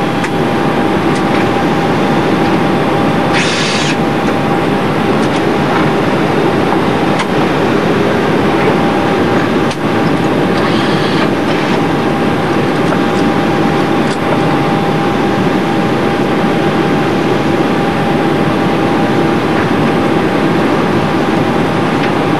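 Boeing 747-217B flight-deck noise on final approach with the landing gear down: a loud, steady rush of airflow and engine noise. A thin steady whine runs under it, and there are two short bursts of hiss, about 3 s and 11 s in.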